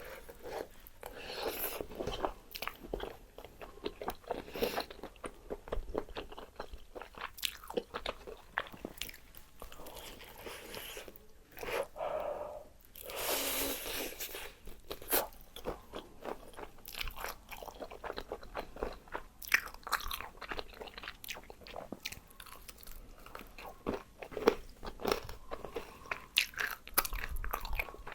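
Close-up crunching and chewing of crispy fried chicken: a dense run of crackling bites and chews, with a louder, longer crunch about halfway through.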